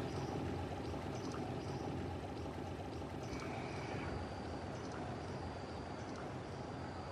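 Steady river-and-forest ambience: a continuous rushing hiss of water with short, high-pitched chirping calls repeating over it, slowly fading.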